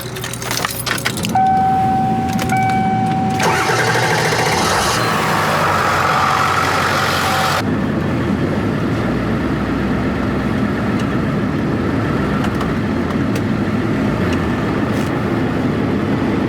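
Ford 7.3 Powerstroke turbo-diesel V8 cranking and starting, then idling steadily from about eight seconds in. A steady high tone sounds over the cranking.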